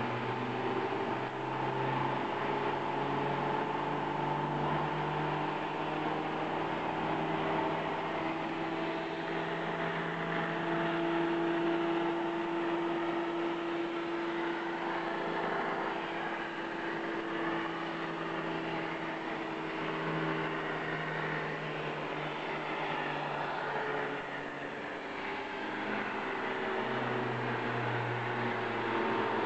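CNC plasma cutting table cutting sheet metal: the steady hiss of the plasma arc and its air, with several machine hums and whines underneath that step to new pitches every few seconds.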